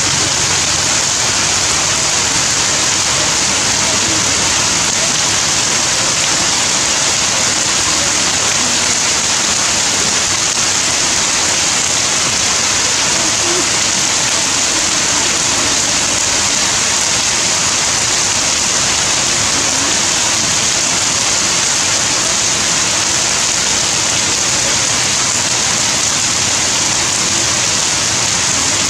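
Heavy rain pouring steadily, splashing on puddled concrete and wet ground.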